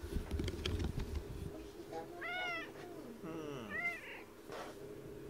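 A cat meowing twice, short calls that rise and fall in pitch, about two seconds in and again near four seconds. Rustling and small knocks fill the first second and a half.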